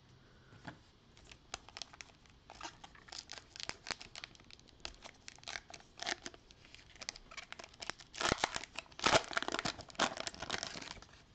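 The plastic cellophane wrapper of a Panini Prizm cello pack of trading cards being torn open and crinkled by hand. Scattered crackles build into the loudest stretch of tearing and crinkling about eight to ten and a half seconds in.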